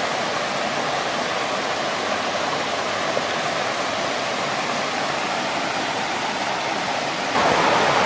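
Small waterfall on a creek rushing steadily, an even hiss of falling water that grows a little louder near the end.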